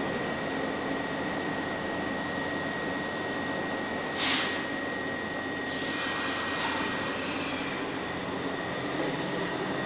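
Subway train running away down the tunnel from the station: a steady rumble with a thin high whine over it, a short hiss about four seconds in, and a brighter rushing noise from about six seconds.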